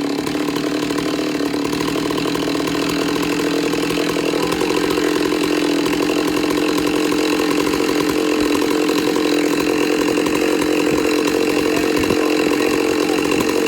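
Chainsaw on an Alaskan chainsaw mill running steadily under load, ripping a log lengthwise into 6x6 beams, its engine note holding at one pitch.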